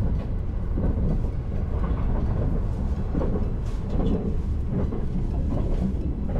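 Azusa limited express (E353 series) running at speed: a steady low rumble of wheels on rail with irregular clacks and knocks from the track joints and car body, heard from inside the passenger car.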